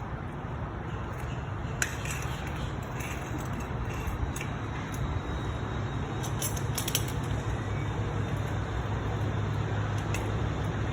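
A few light metal clinks and knocks as a car jack is set in place under a car, about two seconds in and again around four and seven seconds, over a steady low rumble.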